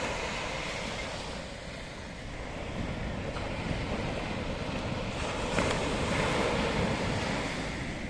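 Ocean surf breaking and washing up a sandy beach, a steady wash of foam that swells louder about five seconds in as a wave comes in.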